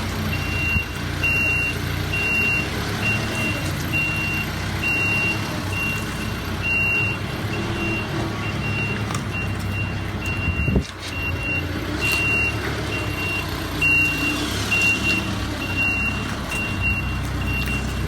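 A vehicle's reversing alarm beeping at an even pace, about one and a half beeps a second, over the steady low rumble of an engine, with a sharp knock about eleven seconds in.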